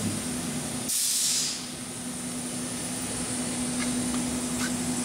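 Kitamura Mycenter 2X vertical machining center running with a steady hum, a short loud hiss about a second in that lasts about half a second, and two faint clicks near the end.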